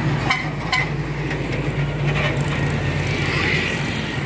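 Tour bus engine running steadily with road noise, and two short clicks within the first second.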